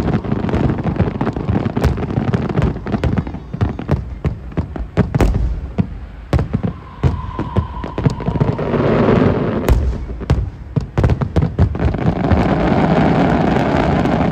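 Aerial fireworks display: shells bursting in rapid, overlapping bangs, several a second, over a rumbling background. Near the end the bangs thin out into a continuous rushing crackle.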